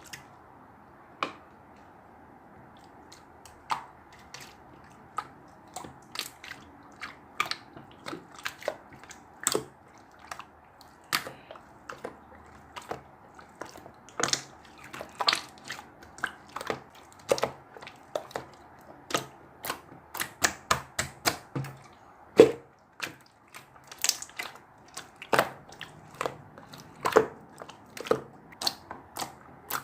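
A run of sharp, irregular clicks and taps over a steady background hiss, sparse at first and coming thicker and faster from about halfway.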